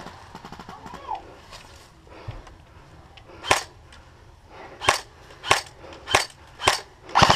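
Airsoft guns firing: a few faint shots early, then five sharp single shots spaced about half a second to a second and a half apart, ending in a short rapid burst.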